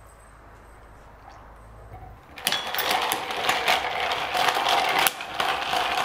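A coffee drink being mixed: rapid clinking and rattling for about four seconds, starting about two seconds in, with a short break near the end.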